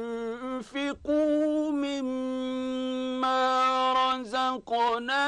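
A man reciting the Quran in the drawn-out melodic mujawwad style. He holds one long steady note for about three seconds, with brief breaks for breath about a second in and again near the end.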